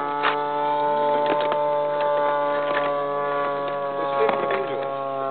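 The 34cc gas engine of a Katana radio-controlled model airplane droning steadily in flight, its pitch easing slightly lower, with a few faint clicks.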